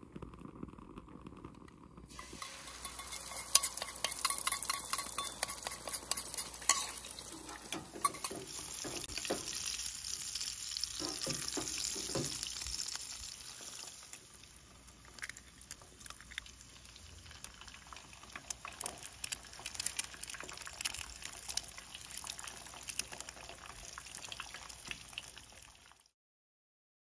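Eggs sizzling as they fry in hot oil in a nonstick pan, with clicks of a plastic spatula against the pan. The sizzle starts about two seconds in, is loudest for the next ten seconds or so, then settles softer, and cuts off suddenly just before the end.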